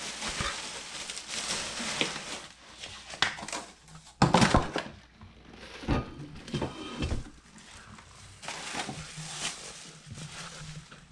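Plastic packaging bags crinkling and rustling as grill parts are unwrapped, with scattered knocks of parts and cardboard; the loudest is a thump about four seconds in.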